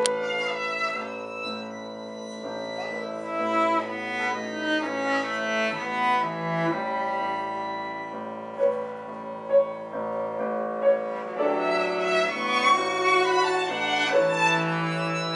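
Violin, cello and piano playing together in a classical chamber piece, a fantasia on a Ukrainian folk song: sustained bowed string lines over the piano, with a few sharper accented notes in the middle.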